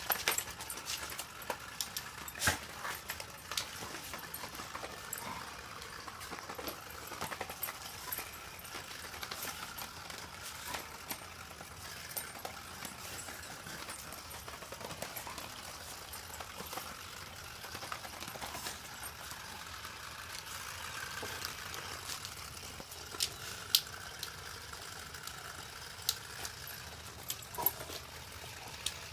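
A dog pushing a spiky plastic giggle-ball toy around on concrete, with scattered clicks and knocks of the toy and paws. Now and then the toy's giggle and the dog's low whining 'talk' come in faintly.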